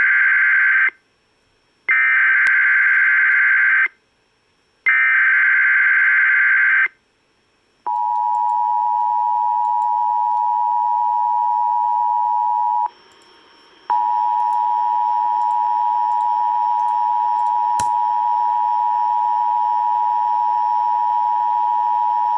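Emergency Alert System tones. First come three bursts of the buzzing SAME digital header data, each about two seconds long with a second of silence between them. Then comes the steady two-pitch EAS attention signal, which drops out for about a second partway through before sounding on.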